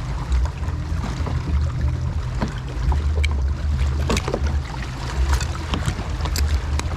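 Wind buffeting the microphone in a low, uneven rumble, with water lapping around a kayak and scattered small clicks and knocks.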